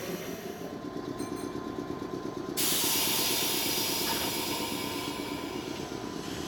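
Red Meitetsu electric commuter train moving slowly past the platform, its running gear sounding steadily. A loud hiss of air starts abruptly about two and a half seconds in and carries on.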